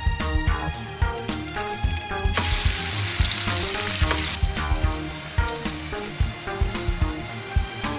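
Sliced onions frying in olive oil in a nonstick pan: a sizzle starts suddenly about two seconds in, loudest for the next two seconds, then settles into a steadier sizzle as the onions are stirred.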